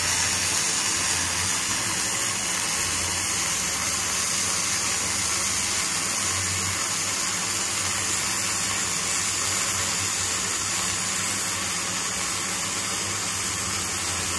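A ZARU MIG-300S gasless (flux-core) MIG welder running a continuous arc on 6 mm steel plate, giving a steady, even sizzle.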